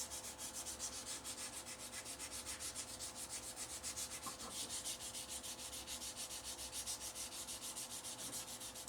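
Wet sandpaper rubbing back and forth on a Bakelite utensil handle under light pressure: a faint, even rasp of quick strokes, about five or six a second.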